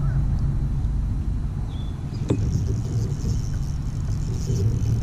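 Steady low rumble of wind buffeting the microphone. About two seconds in comes a single sharp click as a fishing rod is swung up to set the hook on a bass, followed by a high hiss for a couple of seconds.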